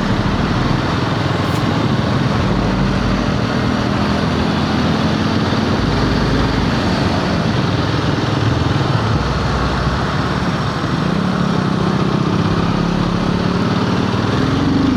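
Royal Enfield Himalayan 450's single-cylinder engine running under way, under a steady rush of wind and road noise. The engine note dips about two-thirds of the way through and then climbs again.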